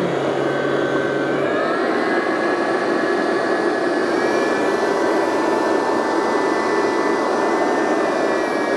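Kenwood stand mixer motor running steadily while kneading doughnut dough in a steel bowl, working the first half of the flour into the liquids. Its whine steps up in pitch about two seconds in and again about four seconds in.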